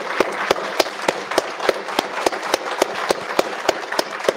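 Audience applauding, with a few close-by claps standing out sharply over the rest.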